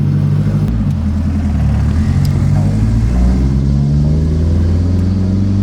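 The turbocharged Honda Accord wagon's four-cylinder engine running. Its pitch climbs gradually through the second half as the revs rise.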